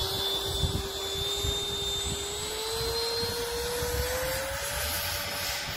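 Freewing T-33 model jet's 80 mm nine-blade electric ducted fan on an 1850 kV motor whining as it throttles up for the takeoff roll, its pitch rising slowly. A low irregular rumble runs underneath.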